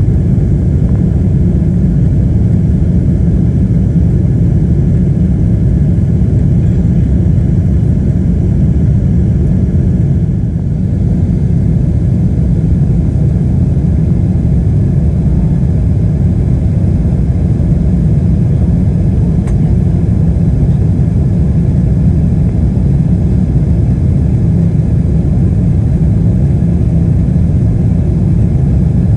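Cabin noise inside a Boeing 777-300ER during its climb after takeoff: a steady, loud, deep rumble of airflow and the GE90 turbofan engines, heard from a window seat. The loudness dips slightly about ten seconds in.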